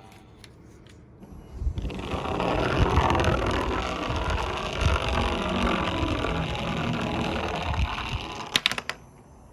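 A die-cast toy minicar rolling and rattling down a plastic slope track, with uneven knocks, for about six seconds. It ends in a few sharp clacks, as the car stops or hits the end of the run.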